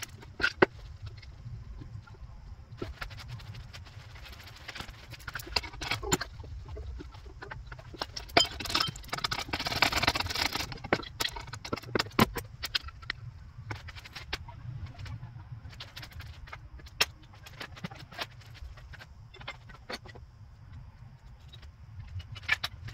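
Metal hand tools clinking and knocking against the alternator and its mounting bolts in a Toyota Yaris engine bay, with irregular sharp clicks and a longer rasping stretch about ten seconds in.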